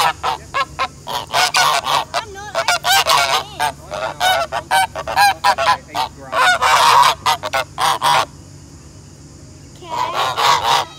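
Domestic grey geese honking in a rapid series of short, loud calls, breaking off for a moment near the end before another burst of honks.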